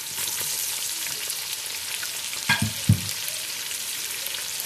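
Onions and meat sizzling steadily in hot oil in a metal pot, a fine crackling hiss. Two knocks against the pot sound a little past halfway.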